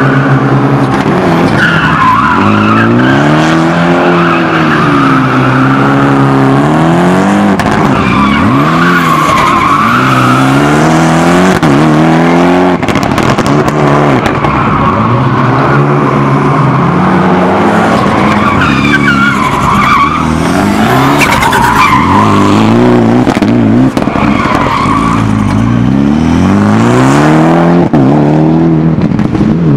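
Rally Ford Fiesta's engine revving hard and dropping back again every two to three seconds as it is driven flat out through gear changes and throttle lifts, with tyres squealing and skidding through the corners.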